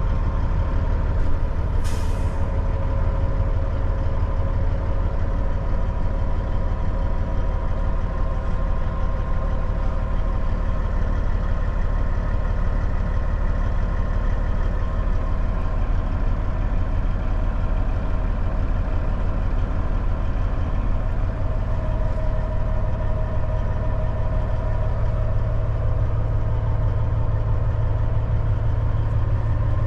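Diesel engine of a 2006 Western Star truck tractor idling steadily, heard from inside the cab, with a short hiss of air from the truck's air system about two seconds in. The low drone grows a little stronger near the end.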